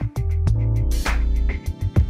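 Background music with regular drum hits over deep bass notes and held melodic notes.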